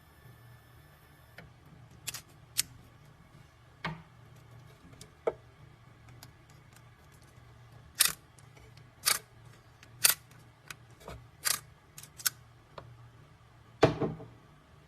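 About a dozen sharp clicks and knocks at uneven intervals, from a key and the clamp of a CNC key cutting machine being handled, over a faint low hum.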